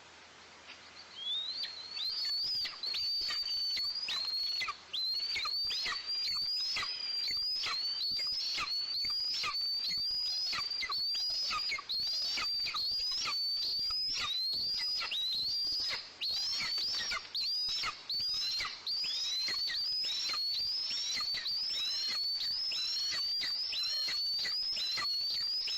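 Nestling birds calling in the nest, typical of begging for food: a continuous run of high, sharp calls, each rising and then dropping steeply, two or three a second, starting about two seconds in.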